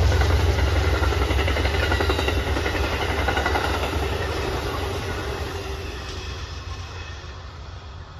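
Amtrak passenger train with a P42DC diesel locomotive passing: the coaches roll by on the rails with a steady low rumble and a faint rhythmic clatter. The sound fades steadily as the last car goes by and the train moves away.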